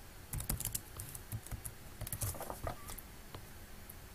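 Computer keyboard being typed on: a short run of irregular keystrokes that thins out near the end.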